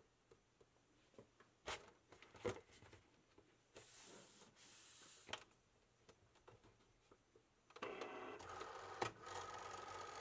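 Cricut cutting machine starting to work, feeding its mat and moving the tool carriage. A few light clicks and short hisses come first, then about two seconds of steady motor whirring near the end.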